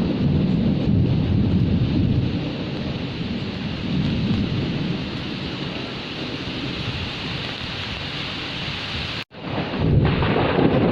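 Steady heavy rain with low rolling thunder, the rumble easing off mid-way. About nine seconds in the sound cuts out for an instant, then comes back with the thunder rumbling again.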